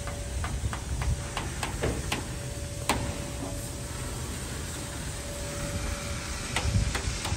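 Garratt steam locomotive 6029 standing close by: a steady low rumble and a steady hum, with a string of sharp metallic clicks and ticks, several in the first few seconds and more near the end.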